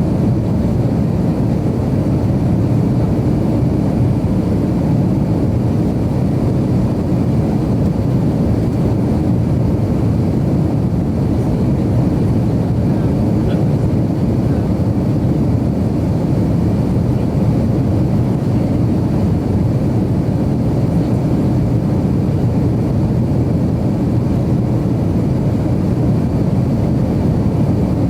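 Steady, loud cabin roar of an Avro RJ100 in flight, its four Honeywell LF507 turbofan engines and airflow heard from inside the passenger cabin, shortly after takeoff.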